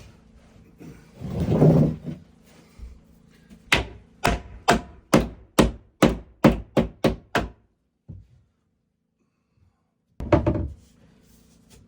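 Hammer blows on wood: about eleven sharp knocks in quick succession, coming a little faster towards the end, after a duller thud. Another short thud near the end.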